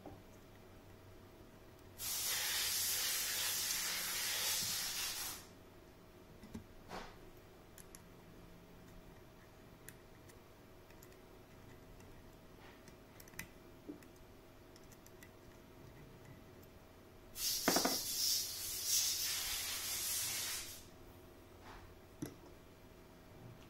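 Compressed air hissing at a stainless steel pneumatic actuator's red air line, in two bursts of about three seconds each. The second burst opens with a brief rattle, and light handling clicks come in between.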